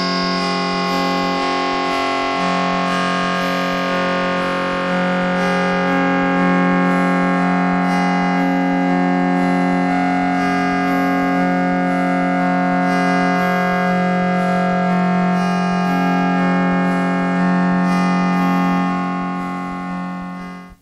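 Karplus-Strong synthesized plucked-string tones: a steady run of overlapping computer-generated notes with changing pitches, fading out near the end.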